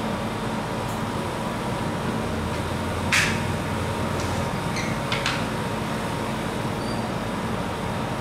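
Steady running hum of a rolled-ice-cream cold pan's refrigeration unit. A sharp click comes about three seconds in, and two lighter clicks about two seconds later.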